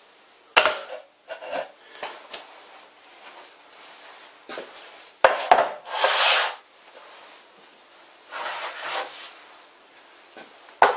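A wooden board knocks down onto a metal lathe bed about half a second in. About five seconds in, a heavy three-jaw lathe chuck thuds down onto the board and scrapes as it is slid along. There is softer rubbing later and another knock near the end.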